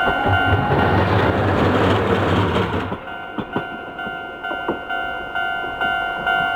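Japanese level-crossing warning bell ringing "kan-kan" at about two strikes a second, while a Tosaden tram runs over the crossing with a loud rumble for the first few seconds, then a few sharp wheel clacks.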